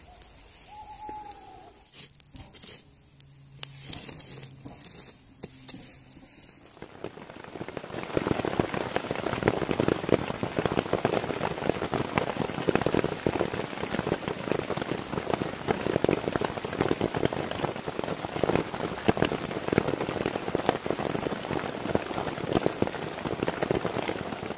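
Heavy rain falling on a tarp shelter over a bivvy, a dense patter of drops. For the first seven seconds or so there is only quieter scattered rustling and tapping, then the heavy rain comes in about eight seconds in and keeps up.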